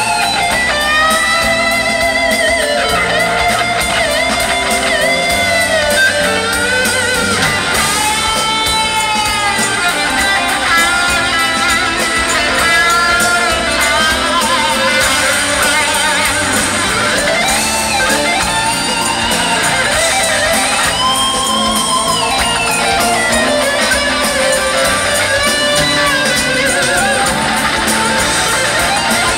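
Live rock band playing at full volume, with an electric guitar carrying the melody in long, bending notes with vibrato.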